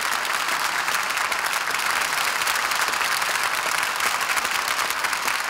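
Studio audience applauding steadily, heard through an old 1950 radio transcription disc recording.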